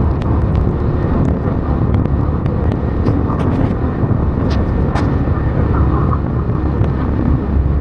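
Steady rain: a constant, loud low rush with scattered sharp ticks of single drops striking something close by.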